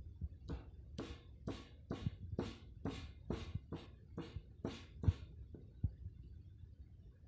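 Green cardamom pods being pounded with a stone pestle in a stone mortar: a run of sharp knocks about two a second, stopping about five seconds in.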